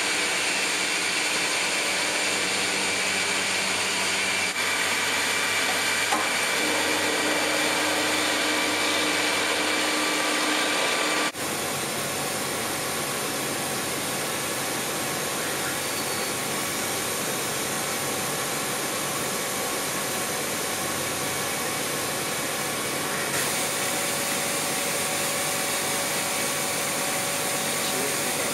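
A milling machine spindle runs steadily with a whine of several held tones while a small cutter engraves a metal block. About eleven seconds in the sound changes abruptly to a laser cutter working, a steady even rushing noise with a faint hum.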